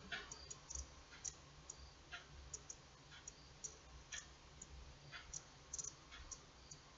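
Faint, irregular clicking of a small steel crochet hook as it works single crochet stitches in embroidery floss, about two or three clicks a second.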